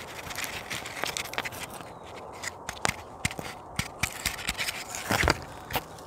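Hands opening and handling a package of mason bee cocoons: a run of small scrapes and clicks, with a louder rustle about five seconds in.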